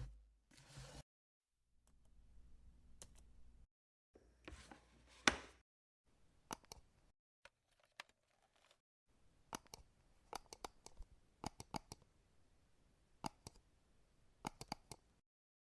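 Irregular sharp clicks and taps, some single and some in quick clusters of two to four, in short stretches broken by silent gaps.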